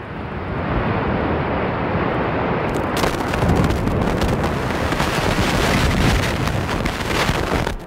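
The Landmark Hotel tower collapsing in a controlled implosion: a loud rumble of falling concrete and debris that builds over the first second. From about three seconds in, a dense crackle of impacts joins it, and the whole sound cuts off just before the end.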